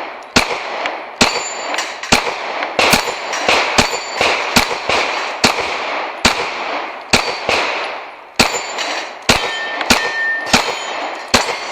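A fast string of pistol shots, about two a second, each echoing, with steel targets clanging and ringing as they are hit.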